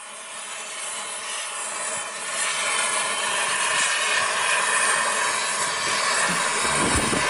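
Gas torch burning with a steady hissing rush. A few low thumps come near the end.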